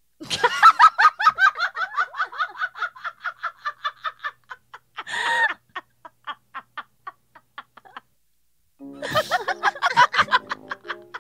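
Two women laughing hard, a long run of rapid laughs that thins out, then a second burst of laughter near the end as a short music jingle comes in.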